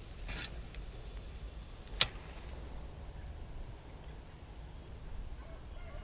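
Spinning rod and reel being cast and worked: a brief swish just after the start, then a single sharp click about two seconds in, over a low steady rumble.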